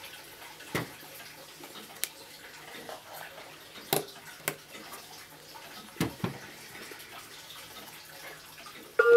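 Handling noise from a wooden wall clock case being turned over and worked on: several short knocks and clicks with soft rustling in between. Just before the end the clock's quartz melody chime starts, with clear bell-like notes.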